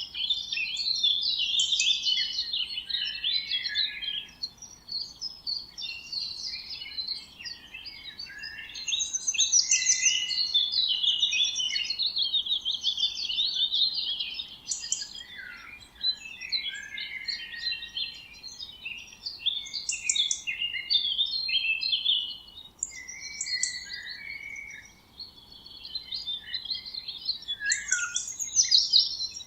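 Many songbirds chirping and singing together in a dense, overlapping chorus, with brief lulls about a third of the way in and again after twenty seconds.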